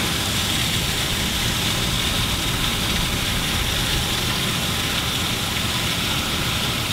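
Steady outdoor background noise: a low, engine-like rumble under an even hiss.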